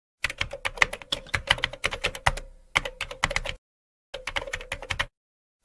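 Computer keyboard typing sound effect: runs of rapid key clicks over a faint steady hum, stopping dead for about half a second twice, around three and a half and five seconds in.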